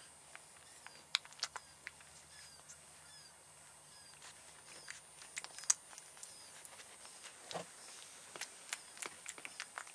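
Newborn French Bulldog puppies making faint, short, high squeaks that fall in pitch, over soft clicks and rustling from handling on a blanket. A lower grunt-like sound comes about three-quarters of the way through.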